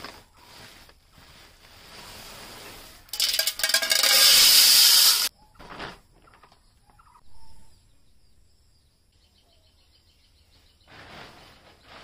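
Dry corn kernels pouring from a woven plastic sack into a metal pot: a loud rushing rattle for about two seconds with some metallic ringing, after quieter rustling of the sack.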